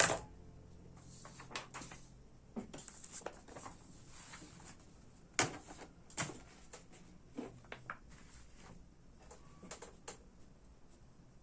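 Computer keyboard keys pressed slowly and irregularly, giving scattered light clicks and taps with a short rustle now and then.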